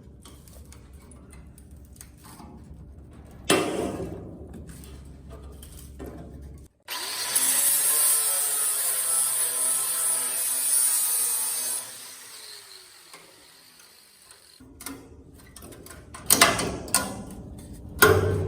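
A power cut-off tool slices through rusty sheet steel for about five seconds, making a loud, high-pitched hiss, then winds down with a falling whine. A few sharp metal clanks come before and after the cut.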